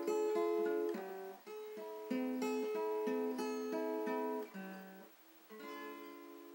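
Acoustic guitar played slowly, a string of picked notes and chords with brief breaks between phrases. Near the end a final chord is struck and left to ring out and fade.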